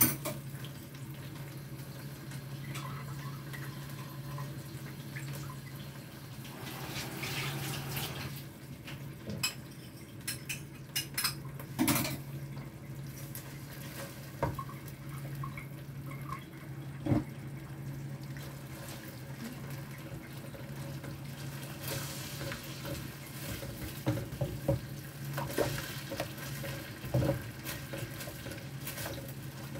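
A spatula stirring and scraping thick sweet-and-sour sauce in a nonstick wok, with a few sharp knocks of the spatula against the pan, over a steady low hum.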